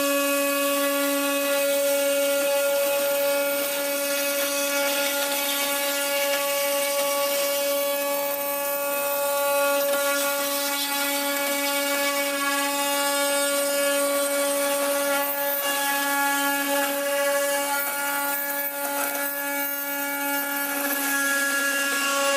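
CNC router spindle running with a small end mill cutting a bracket out of aluminium plate: a steady whine from the spindle over the hiss of the cut, holding the same level throughout.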